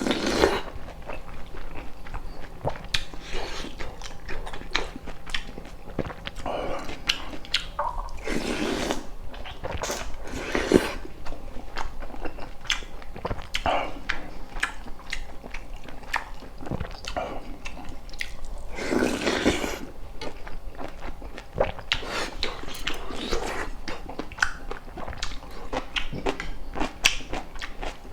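Close-miked eating: chewing and biting a Korean-Chinese meal of brisket jjamppong-bap and sweet-and-sour pork, with many small wet mouth clicks and a few longer, louder mouthfuls.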